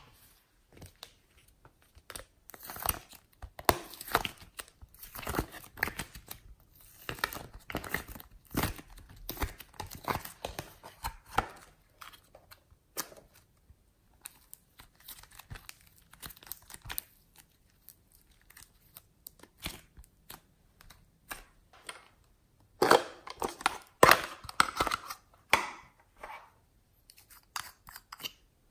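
Soft pink and white clay being pulled apart and squeezed by hand, giving a run of irregular soft tearing and crackling sounds. The sounds come loudest in a cluster about 23 seconds in.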